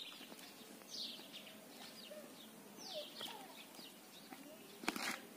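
Birds chirping faintly: a run of short, quickly falling high calls, several a second, with a couple of soft knocks near the end.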